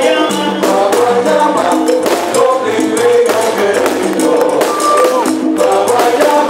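Latin dance music in the salsa style, with a steady beat and shaker and tambourine-like percussion.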